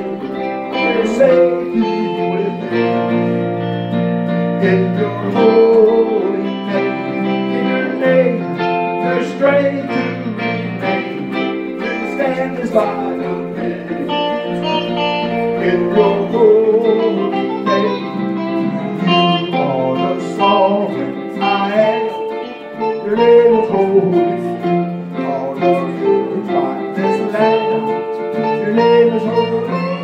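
Live worship music, instrumental: an electric guitar plays a melody with bent, wavering notes over sustained held chords.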